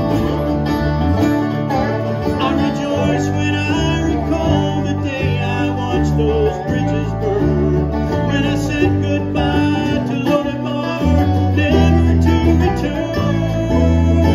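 A bluegrass band playing: banjo, acoustic guitars, resonator guitar and electric bass.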